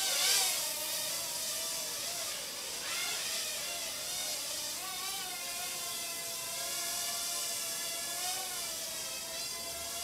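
Bayangtoys X9 toy quadcopter in flight, its motors and propellers giving a high whine that wavers up and down in pitch as the throttle changes. It is briefly louder just after the start.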